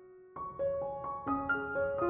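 Background solo piano music: a held note dies away almost to silence, then a run of single notes follows, each struck and left to ring.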